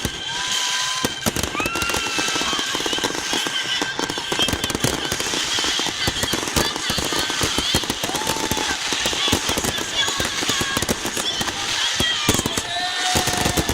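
Fireworks display going off in a dense, continuous run of rapid crackles and bangs, with voices from an outdoor crowd.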